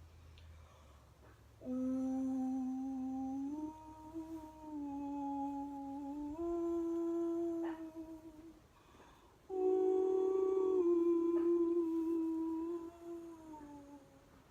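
A woman's voice humming long wordless tones in two phrases, each note held and then stepping up or down to the next, as vocal toning for a sound-and-movement meditation.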